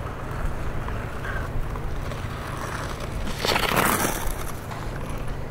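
Ice skate blade scraping across clear lake ice in one loud hissing stroke about three and a half seconds in, over a steady low rumble of wind on the microphone.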